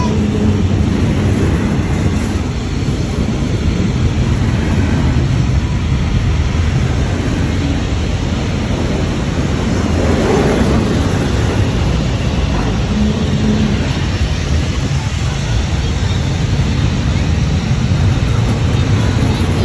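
Double-stack intermodal container train passing close by: a loud, steady rumble of steel wheels on rails and well cars rolling past without pause.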